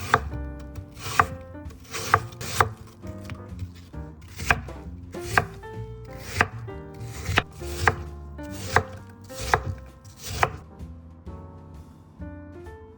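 Knife cutting on a cutting board: about a dozen separate sharp chops, roughly one a second and unevenly spaced.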